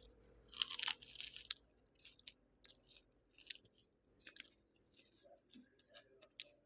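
A person chewing crunchy food close to the microphone: a loud crunching bite about half a second in, then a run of smaller crunches and wet mouth clicks.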